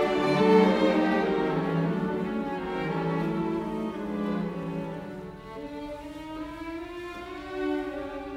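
Background music of slow bowed strings, violin and cello in long held notes, growing quieter through the first half.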